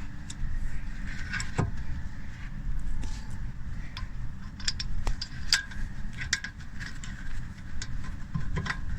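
Light metallic clinks and knocks of hand tools and brake parts being handled, scattered irregularly, over a steady low hum.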